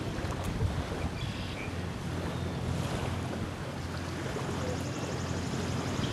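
Small lake waves lapping steadily on a sandy shore, with wind rumbling on the microphone.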